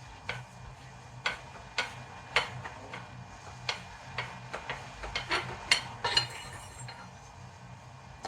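Irregular small clicks and light metal clinks as the threaded air tank of a Bushbuck air rifle is unscrewed by hand, coming faster a little past halfway and then stopping.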